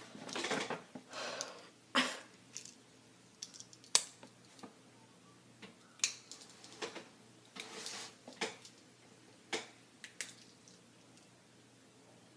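Scattered sharp clicks and brief rustles of a Swiss Army knife being handled, its blades and tools picked at with a fingernail; a tool proves hard to get out.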